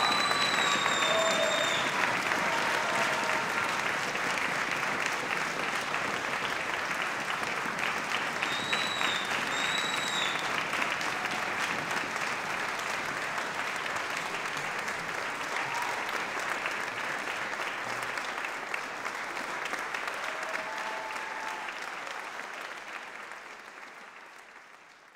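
Audience applauding steadily, with a couple of high whistles near the start and again about nine seconds in; the applause fades away near the end.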